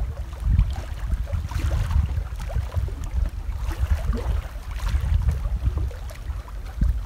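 Wind buffeting the microphone, a loud uneven low rumble that gusts up and down.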